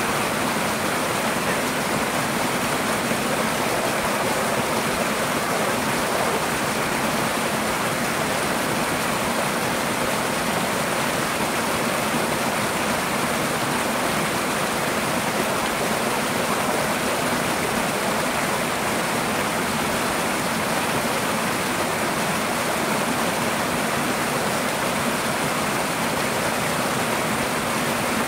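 Twin mini waterfall splashing over rocks into a shallow pool: a steady, even rush of falling water.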